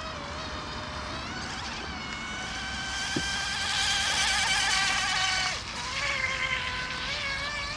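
Micro three-point hydroplane RC boat's motor whining as it runs across the water, its pitch wavering. The whine climbs and grows louder about two seconds in, drops abruptly about five and a half seconds in, and carries on lower.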